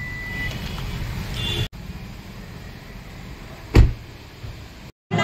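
Low, steady rumble of a road vehicle running, with a single heavy thump a little before the end. The rumble breaks off abruptly twice.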